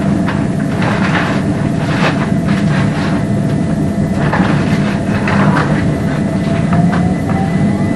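Class 357 electric multiple unit running along the line, a steady rumble broken by irregular clicks and clatters of the wheels over rail joints. Under it runs a steady thin whine, and near the end a second whine starts to rise in pitch.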